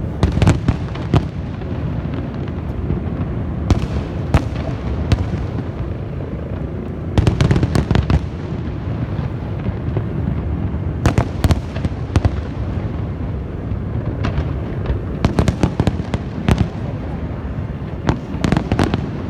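Fireworks going off: a constant low rumble of bursts, with clusters of sharp bangs every three to four seconds.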